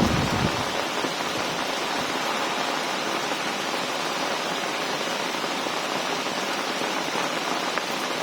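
Rain falling steadily, an even hiss, with a brief low rumble in the first half-second.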